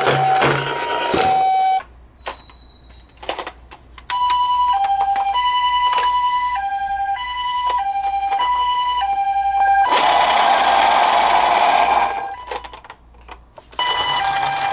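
Japanese ambulance two-tone "pee-po" siren, alternating between a high and a low note, each held about half a second. It is broken by a short quieter spell with a few clicks near the start, and by a loud rushing noise lasting about two seconds past the middle.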